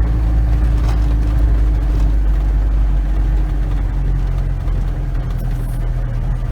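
DAF 400 van's engine running as the van drives slowly, a steady low drone; its note shifts slightly about four seconds in.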